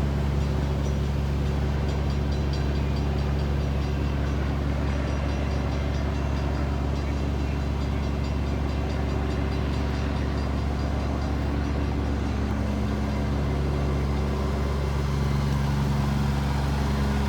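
Engine idling steadily, a constant low hum with no change in speed.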